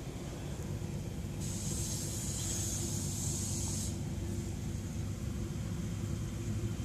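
A high, airy hiss that starts abruptly about a second and a half in and cuts off about two and a half seconds later, over a steady low background hum.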